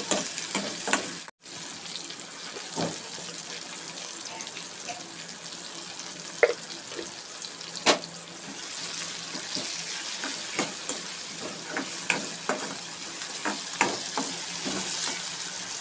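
Chopped tomato, onion and green chilli sizzling steadily in hot oil in a pan, with a spoon stirring and scraping the pan in scattered sharp clicks.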